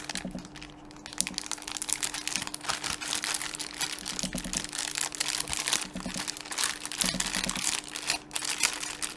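Parcel packaging being torn open and crinkled by hand: a continuous, irregular crackling and rustling, with a faint steady hum underneath.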